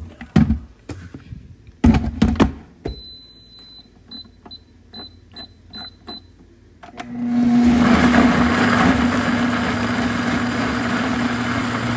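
Sur La Table countertop blender: a couple of knocks as the lid is set on, then a high tone and a run of short beeps and clicks as the control dial is turned. About seven seconds in, the motor starts and runs steadily, pureeing roasted chiles and garlic.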